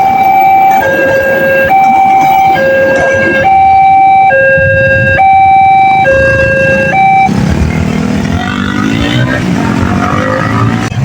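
Railway level-crossing warning siren sounding a two-tone electronic alarm, alternating high and low with each tone held a little under a second. It cuts off about seven seconds in, leaving a mixed rumbling noise.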